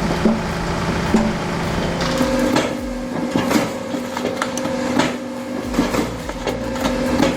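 Firewood splitting machine running with a steady motor hum, with repeated knocks and clatter of logs and split wood. The hum shifts to a higher pitch about two seconds in.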